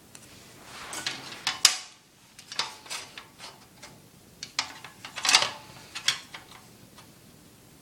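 Screwdriver driving a thick screw into a computer case fan's mounting hole: a string of irregular clicks and scrapes, with the loudest ones about a second and a half in and again just past five seconds.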